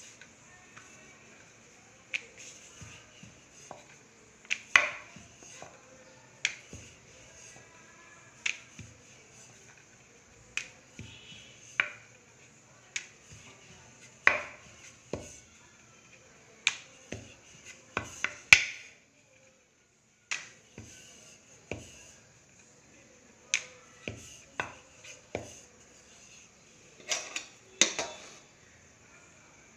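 Dough being rolled out with a wooden rolling pin on a wooden rolling board. Sharp, irregular clacks come every second or so as the pin knocks on the board.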